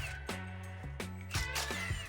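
Background music with a steady beat, bass line and guitar.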